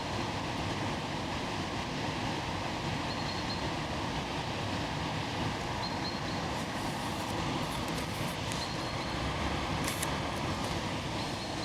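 Steady rushing of river water at the mill, an even unbroken noise, with a few faint short high chirps over it.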